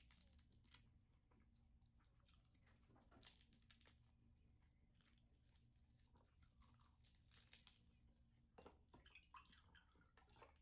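Near silence with faint, scattered clicks and light crunching sounds that come in a few short clusters: at the start, around three seconds in, around seven seconds in, and again near the end.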